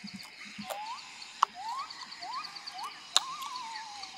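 Wild animal calls: a run of short rising whistled calls, about two a second, turning into a wavering call near the end, over a steady fast-pulsing insect trill. Two sharp clicks stand out, one about a second and a half in and one about three seconds in.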